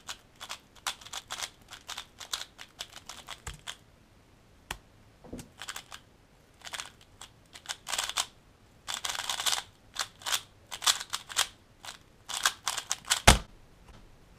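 Valk 3x3 speedcube turned fast by hand: rapid bursts of plastic clicking and clacking, with short gaps between bursts. A single loud thump comes near the end as the solve stops.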